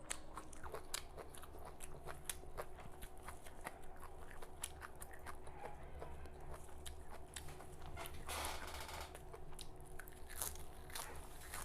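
Close-up chewing of a mouthful of raw red amaranth (lal chaulai) leaves: wet mouth sounds with many small crisp crunches and clicks, and a denser crunching stretch about eight seconds in.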